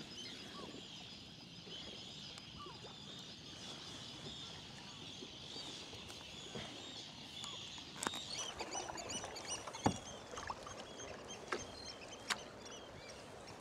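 Seabird colony calling, a dense chatter of many high calls that grows clearer after about eight seconds, with kayak paddle strokes and a few sharp knocks of the paddle against the boat.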